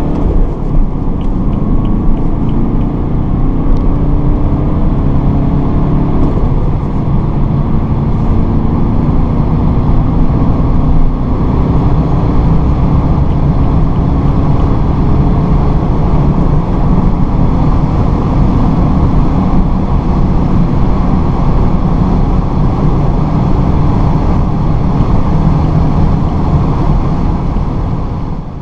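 BMW 420d four-cylinder turbodiesel heard from inside the cabin under hard acceleration at motorway speed, with wind and tyre noise. The engine note rises for the first few seconds and breaks off about six seconds in, then settles into a steady loud drone that fades out at the very end.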